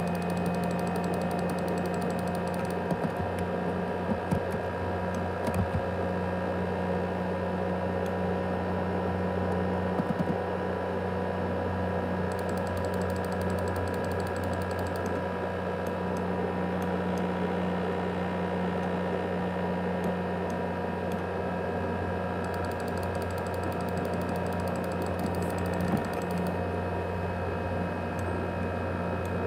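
ASUS X543UA laptop's cooling fan running steadily with a whine of several tones, the jet-engine noise of the broken-down laptop. A few faint clicks sound over it.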